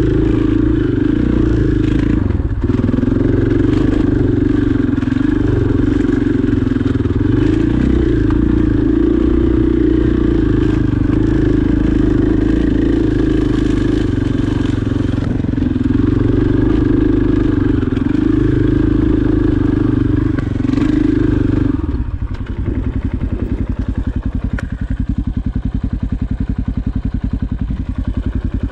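Single-cylinder four-stroke dirt bike engine running at a steady trail pace, then dropping to idle about 22 seconds in, where its separate firing pulses come through evenly.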